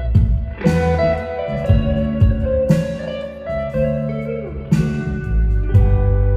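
Live band music: guitar over bass and drums, with a strong accent about every two seconds.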